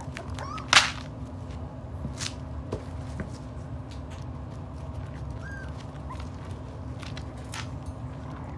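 Miniature pinscher puppies moving about on a padded pen floor: scattered light taps and scuffles with a couple of brief faint squeaks, over a steady low hum. A single sharp snap about a second in is the loudest sound.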